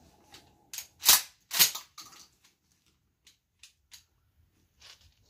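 12-gauge Mossberg 500 pump shotgun firing a Foster slug about a second in, with a second loud report half a second later. A few faint clicks and clacks of handling follow.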